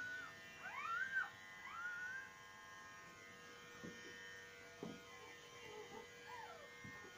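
Newborn puppies squeaking and whining: a quick run of short rising-and-falling squeals in the first two seconds, then a few fainter ones near the end. A steady electrical hum runs underneath.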